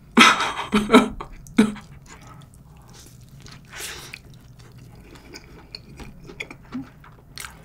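A few short bursts of laughter at the start, then a person biting into a fried chicken burger and chewing it with quiet, wet mouth sounds and small clicks.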